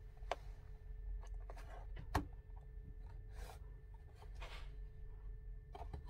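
Small cardboard box being handled and turned over on a wooden tabletop: light taps and soft rubbing of card, with one sharper knock about two seconds in.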